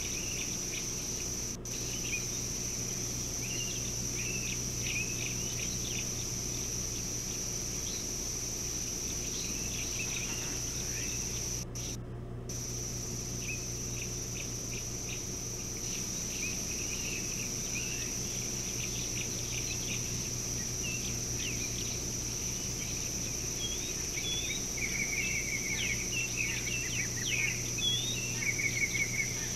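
Morning bush ambience: a steady high insect drone with scattered bird chirps and calls throughout, becoming busier with repeated trills near the end, over a low steady hum.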